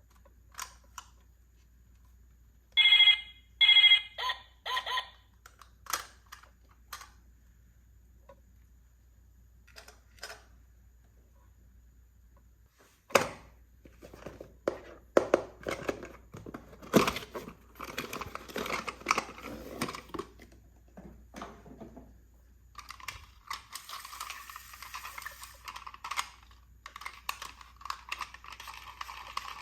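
Hands handling miniature plastic toys and their packaging. About three seconds in come four short ringing clinks. Then a long run of small plastic clicks and crinkling, and in the last several seconds a continuous tearing, peeling rustle.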